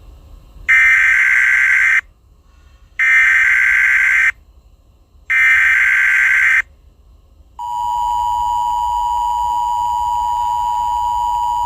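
Emergency Alert System SAME header: three short bursts of shrill warbling data tones, about a second apart. About seven and a half seconds in comes the steady two-tone EAS attention signal, the sequence that announces an emergency alert broadcast.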